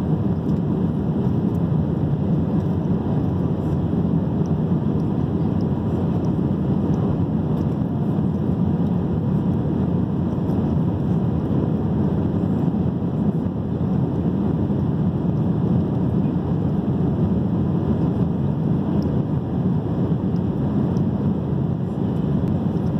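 Steady drone of an Airbus A319's jet engines and rushing air, heard inside the passenger cabin during the climb after takeoff.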